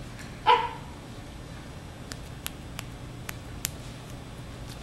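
Shetland sheepdog puppy giving one short, sharp bark about half a second in, followed by a few light clicks.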